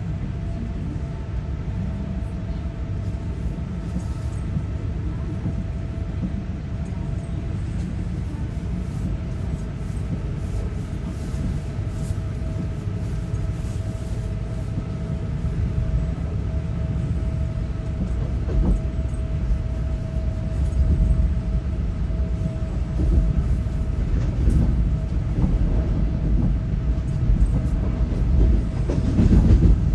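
Fuxing CR200J train running on the rails: a steady low rumble with a faint constant tone over it and scattered clicks. The rumble grows louder in the second half.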